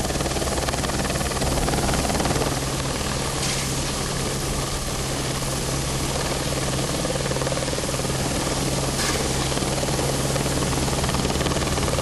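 Helicopter hovering close by, its engine and rotor running steadily.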